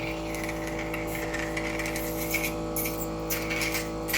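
Medical suction aspirator's pump motor running with a steady hum, with irregular bursts of hiss as air is drawn through the suction catheter while the child's mouth and airway are suctioned.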